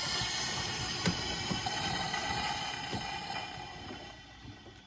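Pressure hissing out of the hot cooling system of a 5.3L V8 through the loosened coolant surge tank cap, a lot of hissing that fades away over about four seconds as the system depressurises after the warm-up cycle.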